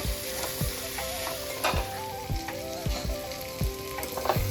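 Chicken pieces and ground spice paste sizzling steadily as they fry in oil over a low flame.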